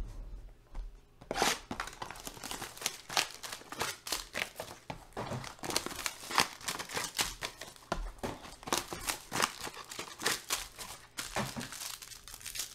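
Clear plastic wrapping on trading-card packs crinkling and tearing as it is handled and opened by hand: a dense run of sharp, irregular crackles that starts about a second and a half in and eases near the end.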